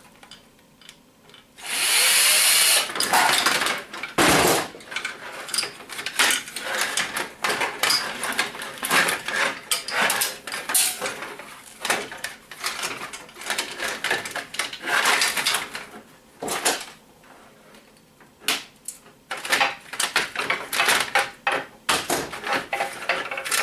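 A power drill-driver runs in a burst lasting a second and a half, about two seconds in. It is followed by a long run of clicks, knocks and rattles of plastic and metal printer parts being handled and pulled apart.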